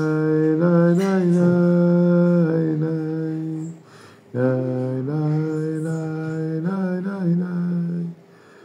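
A man singing a wordless Jewish melody (niggun) on 'nai nai' syllables, with no accompaniment. He sings it in two long phrases and pauses for breath about four seconds in.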